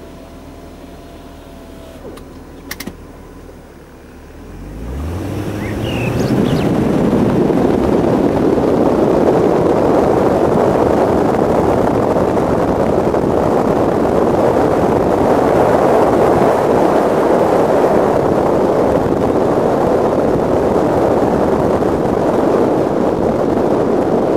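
BMW E34 540i's V8 engine idling, then rising in pitch as the car pulls away about four seconds in. From then on, heavy wind noise buffeting the microphone of the camera mounted outside the car drowns everything else.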